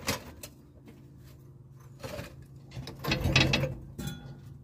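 Clicks and rattling clunks of a Dana 35 rear axle being shifted on a floor jack over concrete, with a louder rattling stretch about three seconds in.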